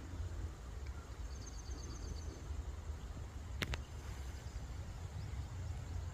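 Outdoor forest ambience: a steady low rumble, with a small bird's rapid high twittering about a second in and a single sharp click midway.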